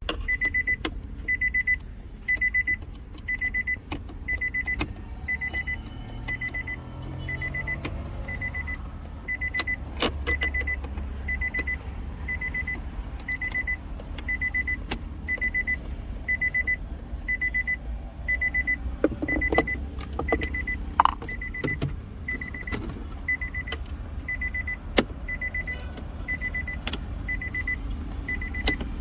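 Car's interior warning chime beeping steadily, about three evenly spaced high beeps every two seconds, with scattered clicks and knocks.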